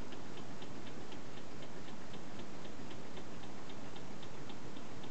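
Homemade tin-can Stirling engine running on after its heat is pulled out, giving a regular click about four times a second. The click comes from a little too much play where the connecting rod joins the crank pin, as the builder thinks.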